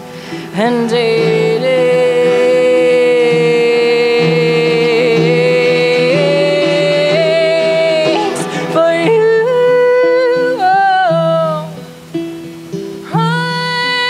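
Live band music: a woman's voice singing long held notes and a short wavering melody over strummed guitars, with a brief dip near the end before another long held note.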